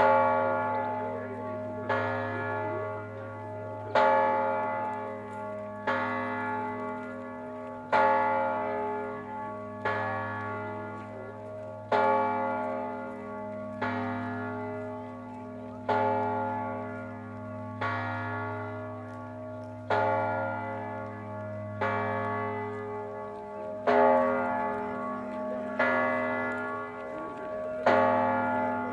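A large bell tolling slowly, struck about every two seconds, each stroke ringing on over a steady low hum until the next.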